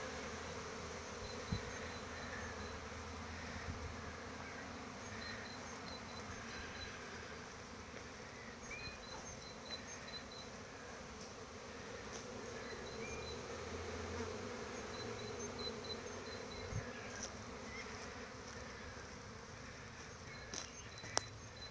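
Steady hum of many honeybees flying around the hives of an apiary, a sign of colonies active and foraging on one of the season's first warm days.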